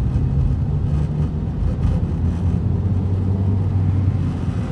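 Car engine and road noise heard from inside the cabin while driving: a steady low hum whose pitch drops a little after about a second.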